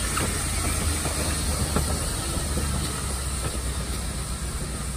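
Black Hills Central 2-6-6-2T Mallet steam locomotive No. 110 moving slowly on the rails: a steady low rumble with steam hiss and a few light clanks and squeaks from the running gear.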